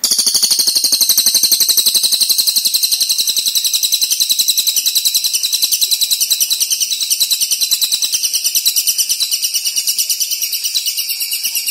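A songbird's long, fast trill of high, sharp notes at about ten a second, without a break.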